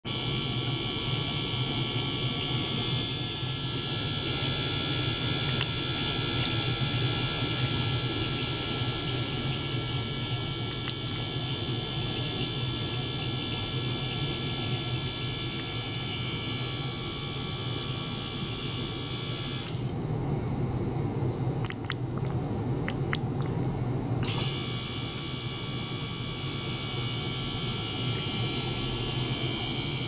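Small water-circulation pump and ultrasonic bath running together: a steady low hum under a high, many-toned whine. About twenty seconds in, the whine cuts out for about four seconds, leaving the low hum and a few faint clicks, then it comes back.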